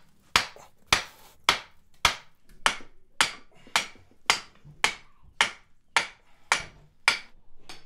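Blacksmith's hand hammer striking a red-hot steel bar on an anvil, forging a holdfast: steady, even blows about two a second, each with a short metallic ring.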